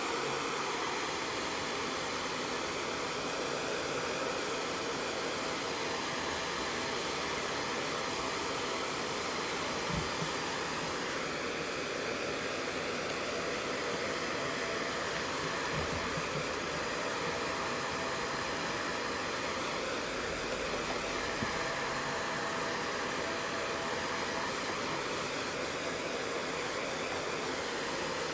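Hair dryer blowing steadily, with a faint whine under the rush of air. A few light knocks are heard partway through.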